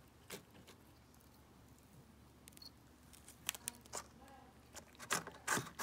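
A cat chewing a slice of pizza in its cardboard delivery box: scattered small crunching clicks and cardboard crackles, in a cluster about three seconds in and a louder one near the end.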